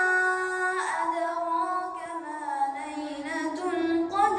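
A single voice chanting Quranic recitation (tajweed) in one long melodic phrase, holding notes and ornamenting them with small turns in pitch.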